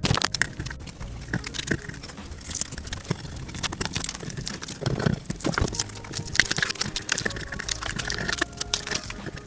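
Grip tape being peeled and scraped off a kick scooter's deck, sped up sixteen times: a dense, rapid crackling and clicking.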